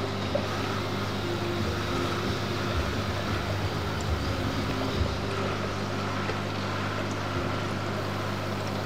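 Aquarium pump running with a steady low hum over an even hiss of moving water.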